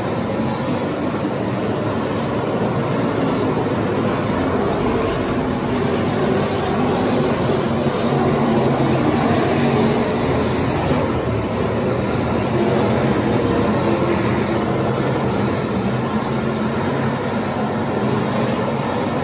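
Engines of a pack of factory stock race cars running at speed on a dirt oval, a steady loud drone that swells as cars pass close by about eight to ten seconds in.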